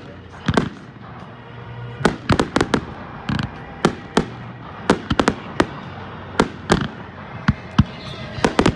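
Aerial fireworks bursting: a rapid, irregular run of loud sharp bangs, some coming in quick clusters of two or three.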